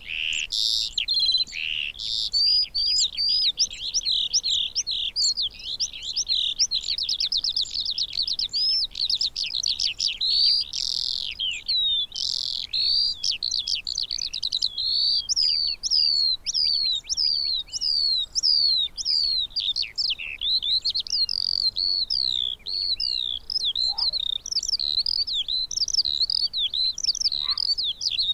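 Eurasian skylark (Alauda arvensis) song: a long, unbroken stream of fast, high warbling notes, trills and rapid repeated chirps, the male's sustained song-flight song.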